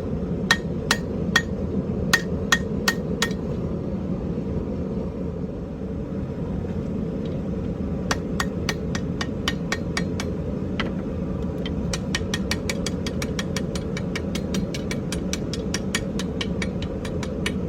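Hammer blows on iron against an anvil, straightening a scrap ornamental iron rod. The blows come in bouts, a couple a second at first, then a pause of several seconds, then a faster run of about four a second. A steady low hum runs underneath.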